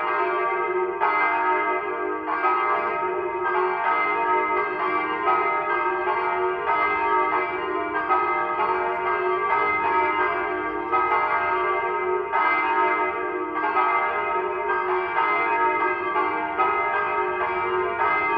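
Church bells ringing continuously, with a new stroke about every second, each one ringing on into the next over a steady low hum.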